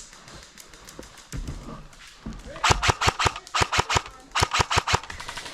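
Airsoft guns firing in three quick bursts of about five to seven shots each, starting a little past halfway.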